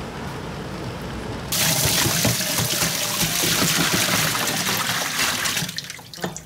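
Water and a load of gizzard shad tipped from a cooler into a stainless-steel sink: a loud gushing splash that starts suddenly about a second and a half in and tails off near the end. Before it there is only quieter background noise.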